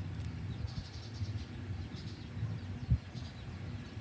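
Faint bird chirps over a low rumble, with a single sharp knock about three seconds in.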